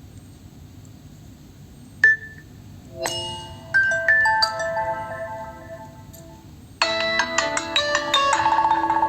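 Nokia 3.4 smartphone playing its preset ringtones through its speaker. A short single tone comes about two seconds in, then a melody of separate decaying notes. About seven seconds in, another ringtone with several notes sounding together starts abruptly.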